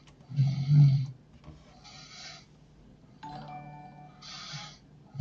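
A man snoring heavily in his sleep: a deep rattling snore about a second in and another at the very end, each followed by a hissing breath, about one breath every two and a half seconds, with a softer snore about three seconds in.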